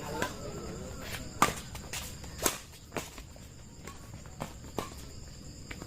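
Irregular sharp knocks of badminton play on a court, about five of them spread over a few seconds, over a steady high-pitched insect drone.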